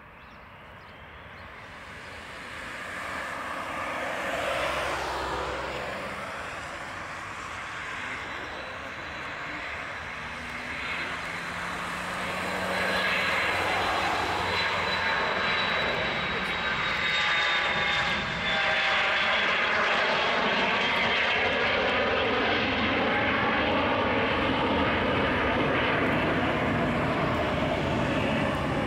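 Dassault Falcon 900EX's three Honeywell TFE731 turbofans at takeoff power through the takeoff roll, rotation and climb-out. The roar grows louder over the first few seconds, then holds steady as the jet passes and climbs away, with a thin high whine that slowly falls in pitch.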